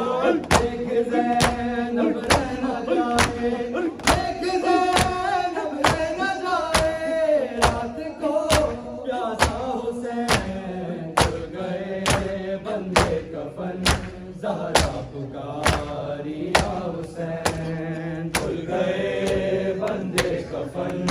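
A group of mourners beating their bare chests in unison (matam), sharp slaps a little more than once a second, under male voices chanting a mournful noha.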